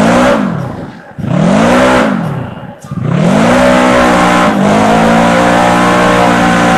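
Side-by-side UTV engine revved hard in repeated bursts, rising and falling three times. It then holds at high revs for about the last two seconds as the machine claws at a steep dirt hill climb.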